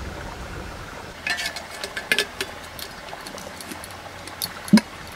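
Light clicks and clinks of a stainless steel tiffin box being handled and its steel lid fitted, with one louder knock near the end.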